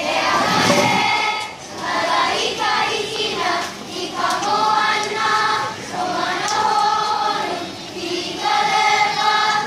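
A group of children singing a song together, in held phrases with short breaks between them.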